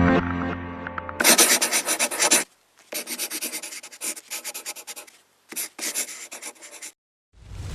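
Music stops about a second in. It is followed by three short spells of quick, repeated rubbing and scraping strokes on a hard surface, each cut off abruptly. Near the end a loud rising whoosh builds up.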